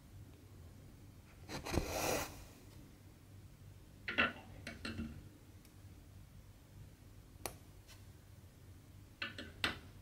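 Hand cross-stitching: thread drawn through the fabric with a rubbing rustle about two seconds in, then scattered small clicks and rubs as the needle and cloth are handled.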